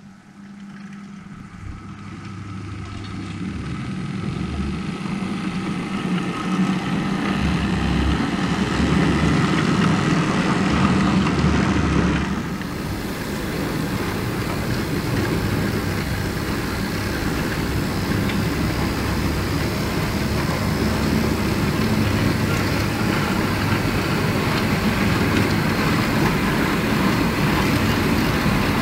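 HO scale model goods train running on its track, a steady rolling, rumbling sound of wheels on rails with the hum of the locomotive motors. It grows louder over the first several seconds, then runs on steadily.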